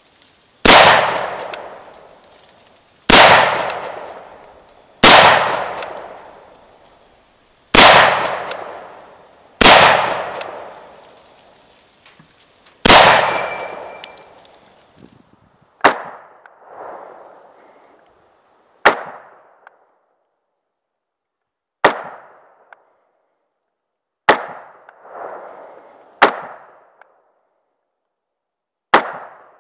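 M1 Garand semi-automatic .30-06 rifle firing about a dozen single shots, two to three seconds apart, each cracking sharply and then echoing away. Around halfway through, the shots turn drier and shorter, and a few are followed by a distinct echo about a second later.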